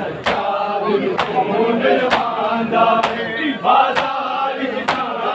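Group matam: a crowd of bare-chested men beating their chests in unison, a sharp slap about once a second, over a crowd of men chanting a Punjabi noha in chorus.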